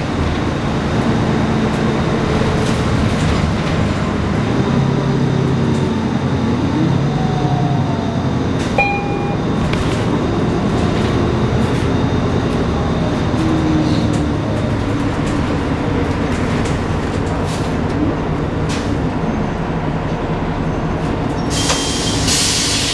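Cabin noise inside a 2017 Nova Bus LFS diesel city bus under way: steady engine and drivetrain noise with scattered clicks and rattles. A short beep comes about nine seconds in, and a burst of hiss near the end.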